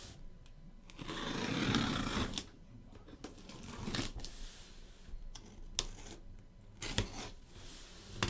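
Cardboard trading-card case being opened: a ripping, tearing noise of about a second and a half, then scattered taps and knocks as it is handled.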